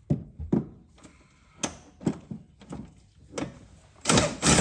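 Several separate metal knocks and clunks as the bolt is worked into the camber arm's mount, then from about four seconds in a fast, loud run of ratchet clicking as the bolt is run in with a socket wrench.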